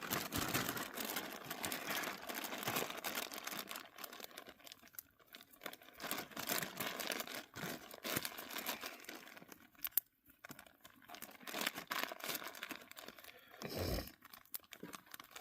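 Campfire crackling, a dense continuous run of small sharp snaps and pops.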